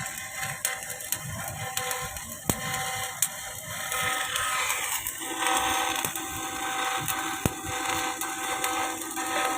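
Electric arc welding: the arc crackling and sputtering steadily with many small irregular pops, over a faint steady hum.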